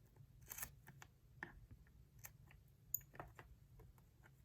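Quiet handling sounds of scissors and a notebook as an elastic closure is cut and pulled away: a short rustle about half a second in, scattered light clicks, and one sharper click about three seconds in.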